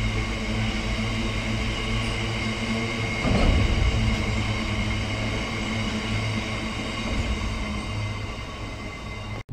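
Train of VTG open box wagons rolling past on the rails, a steady running hum from the wheels, with a louder rumble about three seconds in. The sound cuts off abruptly just before the end.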